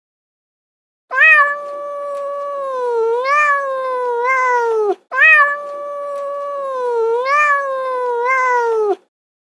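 Domestic cat giving a long, drawn-out meow, twice: two identical calls of about four seconds each, the pitch wavering and then falling at the end of each.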